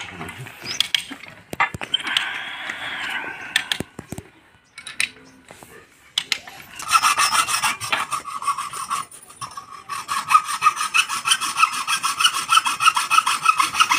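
Hacksaw cutting a metal water pipe clamped in a pipe vise: quick, even back-and-forth strokes that start about halfway through and keep up to the end. Before that, scattered scrapes and knocks of the pipe tools.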